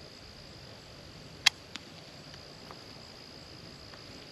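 Quiet background with a steady high-pitched insect trill. A single sharp click sounds about a second and a half in, followed closely by a softer one.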